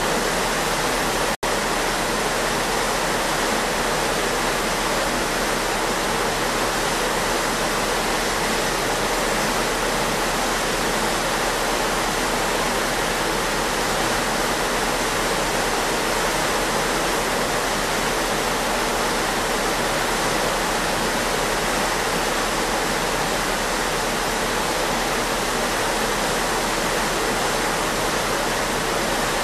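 Steady rushing and churning of a ship's wake water behind the stern, with a low steady hum underneath. The sound drops out for an instant about a second and a half in.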